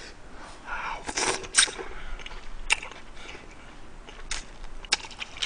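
Close-miked eating sounds: a man chewing and slurping spicy braised chicken and aged-kimchi stew. There are short noisy puffs about a second in and a few sharp clicks later on.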